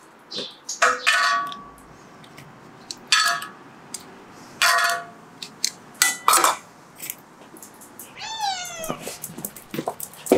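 Dishes or cookware clinking several times, each strike ringing briefly. A cat gives one meow about eight seconds in.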